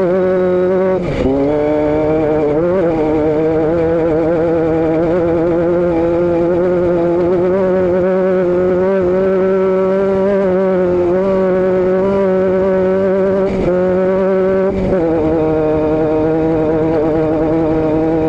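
Vehicle engine and exhaust running at steady cruising revs. The pitch briefly drops and picks back up about a second in, again shortly after, and twice more near the end.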